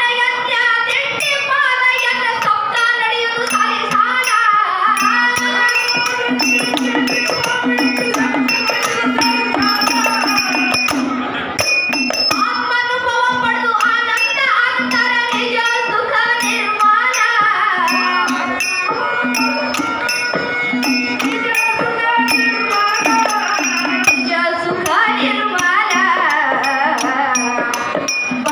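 A woman singing a Kannada devotional bhajan into a microphone, backed by hand percussion keeping a steady, jingling beat and a repeating low note.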